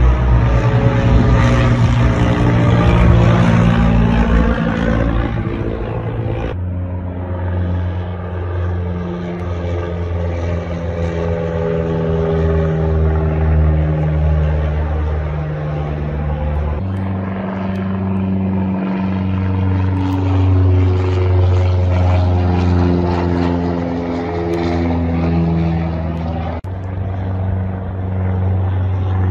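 Single-engine Cessna light aircraft flying low overhead, the steady drone of its piston engine and propeller falling in pitch as it passes. The sound changes abruptly about 6, 17 and 27 seconds in, as new passes begin.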